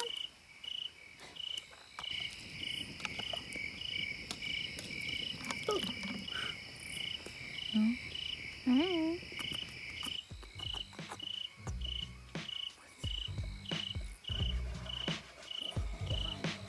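Crickets chirping at a steady pace, about two chirps a second, with a second faster insect trill in the first half. A couple of short rising voice-like sounds come partway through, and low thuds come in over the second half.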